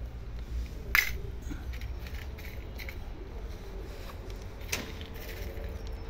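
A small steel plate of chickpeas clinking on a concrete floor: a few sharp metallic clicks, the loudest about a second in and another near five seconds, over a low steady rumble.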